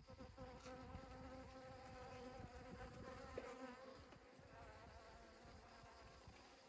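Honeybees buzzing as they fly in and out of a flower foraging for pollen: a faint, wavering hum, strongest in the first half and fading a little after about four seconds.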